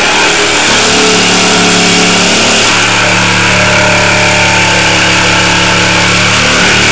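Power tool running flat out, cutting through the sheet metal of a car hood: a loud, steady, harsh hiss over a motor hum.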